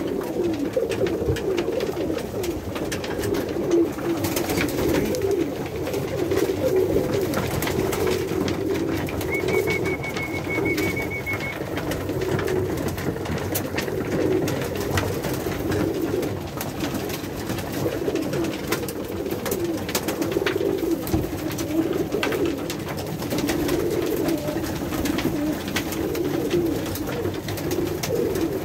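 A loft full of Pakistani high flyer pigeons cooing, many overlapping coos running on without a break, heard in a small enclosed room, with scattered small clicks throughout.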